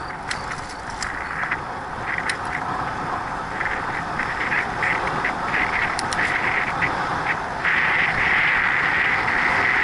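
Wind rushing over an action camera's microphone and tyre noise from a bicycle gathering speed on a paved road, with scattered light rattles and clicks. The rush grows louder and steadier near the end.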